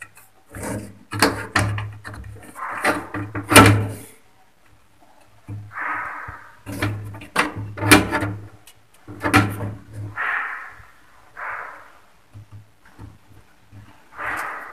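Hard plastic parts of a toilet cistern's fill valve clicking, knocking and scraping as they are worked by hand, adjusting the valve so the cistern fills higher. A quick run of clicks and knocks comes first, then a few separate short rasps.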